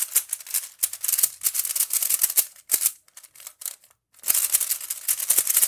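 Cyclone Boys Feiku tiled 3x3 speed cube being turned fast: a dense run of loud, clacky plastic clicks and rattling, in two spells with a pause of about a second in the middle. The cube is very loose.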